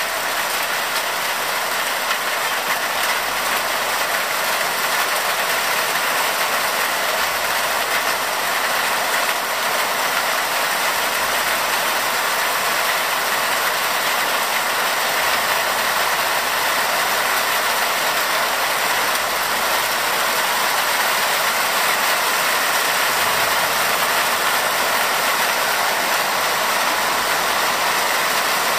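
Heavy summer rain falling steadily, a dense, even hiss of drops.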